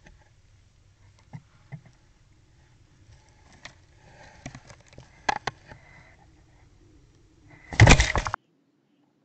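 A cat moving about inside a wooden hedgehog house, bumping and brushing against the walls and the camera, with scattered knocks and rustling. These build to a loud burst of scraping and knocking nearly eight seconds in that lasts under a second. A steady low hum runs underneath.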